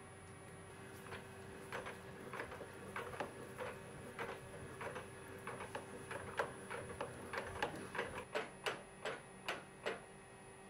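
A series of sharp clicks from a DIY CNC mill as its spindle, with a tap in the holder, is turned by hand. The Z axis follows the spindle in rigid-tapping sync. The clicks are irregular at first and settle into about three a second near the end, over a faint steady hum.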